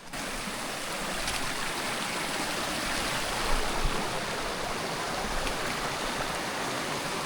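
Mountain creek water rushing over rocks: a steady, even rush.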